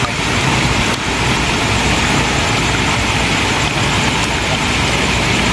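Fountain jets splashing into a basin: a steady, even rush of falling water.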